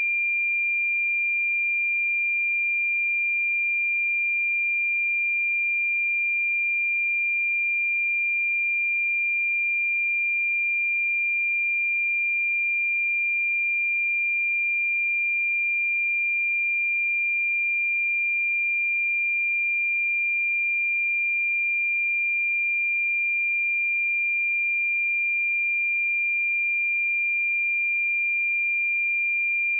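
A pure 2391 Hz sine-wave test tone, one steady high pitch at a constant level.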